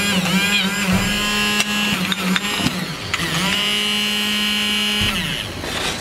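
Small electric motor of an air pressure horn's compressor running with a steady buzzing whine. It stops about two and a half seconds in, spins up again about a second later, and cuts off about five seconds in.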